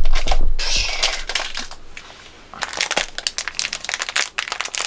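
Crinkly packaging being handled and crumpled, with a few dull bumps at the start, then a quieter stretch and a run of sharp crinkling ticks in the second half.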